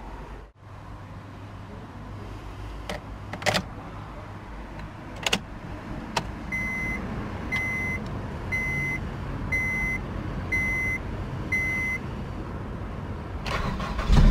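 Several sharp clicks, then a 2005 Honda Civic Type-R's dashboard warning chime beeping six times, about once a second, with the ignition switched on. Near the end the starter cranks and the 2.0-litre i-VTEC four-cylinder fires up.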